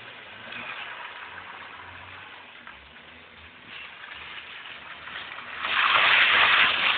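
BMW E30 318is sliding in donuts on a flooded wet surface, its tyres and engine faintly heard under a hiss of water spray. About five and a half seconds in, a loud rush of spray as the car swings close by.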